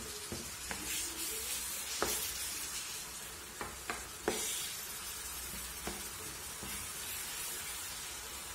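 Minced beef and onions sizzling in a nonstick frying pan as a wooden spoon stirs and scrapes through them. A few sharp knocks of the spoon against the pan stand out, the loudest about four seconds in.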